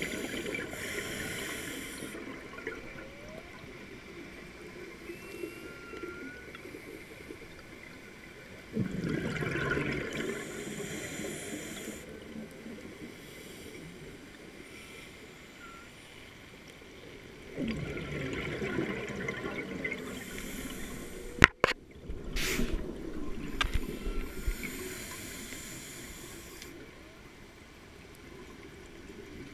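Scuba diver breathing through a regulator underwater, heard through the camera housing: a burst of exhaled bubbles about every eight to nine seconds, with a hiss between them. A single sharp click or knock a little past the middle is the loudest sound.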